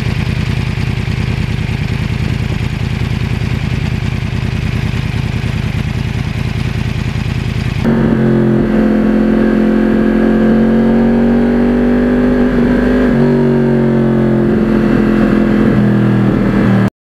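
2009 Yamaha R1's crossplane inline-four with a custom carbon exhaust, running loud and rough. About eight seconds in it changes suddenly to a steady engine tone with a slowly rising pitch, as at cruising speed, dips briefly, then cuts off abruptly near the end.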